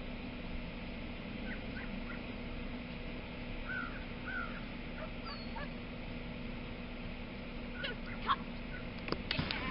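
Outdoor background: a steady hum and noise with scattered short bird chirps and calls, including two rising-and-falling calls about four seconds in, and a few sharp clicks near the end.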